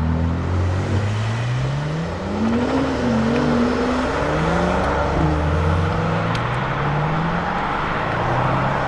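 Lamborghini Huracán STO's naturally aspirated V10 accelerating hard, its pitch climbing again and again and dropping back at each upshift.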